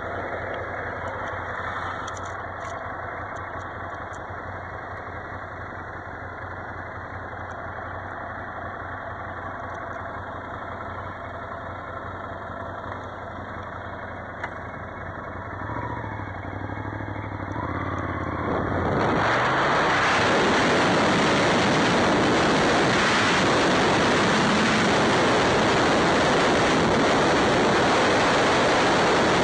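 Ducati Scrambler motorcycle engine running low and steady, then revving up with a rising pitch about sixteen seconds in as the bike pulls away. From about nineteen seconds on, a loud steady rush of wind on the microphone at riding speed covers the engine.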